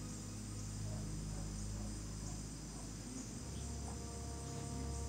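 Soft, sustained ambient background music whose low notes change a little over three seconds in, over a steady high-pitched trilling of insects such as crickets.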